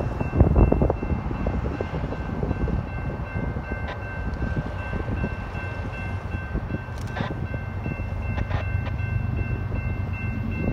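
Approaching freight train led by GE diesel-electric locomotives, heard at a distance as a low rumble that grows louder near the end. Wind buffets the microphone at the start, and faint steady high tones sit over the rumble.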